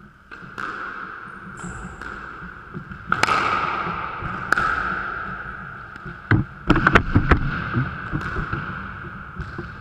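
Squash rally: sharp cracks of the ball off rackets and the court walls, each ringing in the enclosed court, with running footfalls on the wooden floor. The loudest cluster of hits comes about six to seven and a half seconds in, as play comes close.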